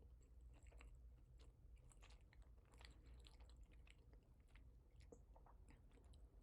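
Near silence: a low room hum with faint, scattered small clicks.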